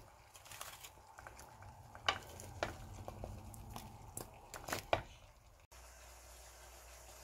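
A wooden spatula stirring frozen mixed vegetables and chicken pieces in a pan: scraping and clicking, with sharp knocks about two and five seconds in. Near the end the sound cuts off and a steady hiss takes over.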